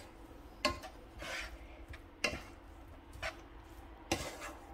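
Spatula clicking and scraping against a non-stick frying pan while noodles and shredded vegetables are tossed and mixed: four short knocks at uneven intervals of about a second, with soft rustling of the noodles in between.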